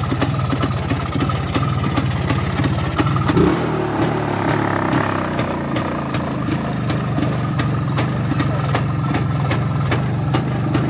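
IZh motorcycle's two-stroke engine running at idle. About three and a half seconds in it is briefly revved, then settles back to a steady idle.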